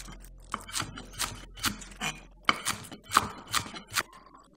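Kitchen knife chopping scallions on a wooden cutting board: crisp knocks of the blade through the stalks onto the board, about two a second in an even rhythm.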